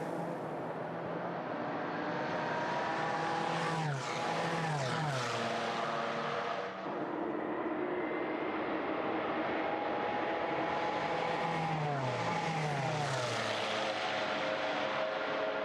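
Le Mans prototype race cars, the 2011 Peugeot 908 V8 turbodiesels, passing at speed in a group. Their engine notes drop in pitch as they go by, about four seconds in and again about twelve seconds in.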